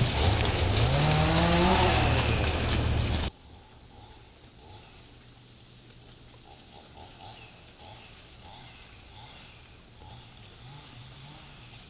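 A motor vehicle engine running, its pitch rising, for about three seconds, then an abrupt cut to a quiet outdoor background with faint, evenly repeated chirping calls.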